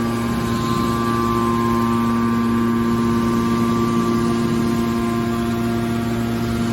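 Scrap car baler's hydraulic power unit running with a steady hum that holds constant pitch throughout.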